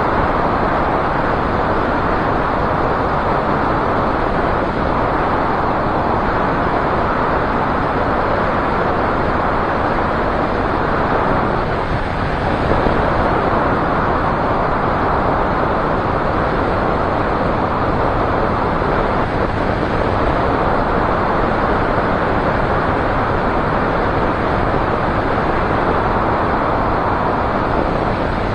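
Light aircraft's propeller engine running steadily in flight, mixed with heavy wind rush over an outside-mounted microphone. The noise holds level throughout, with a slight dip about twelve seconds in.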